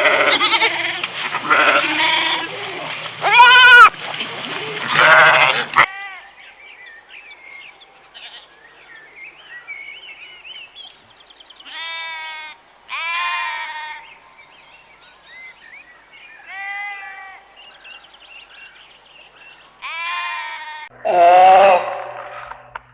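Livestock bleating: loud, wavering calls for about six seconds, then an abrupt cut to a quieter recording with faint chirping behind a few separate bleats, and a louder, lower call near the end.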